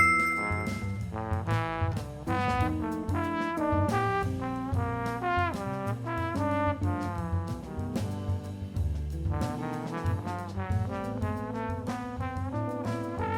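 Music: a saxophone playing a jazzy melody of quick, changing notes over a backing track with bass.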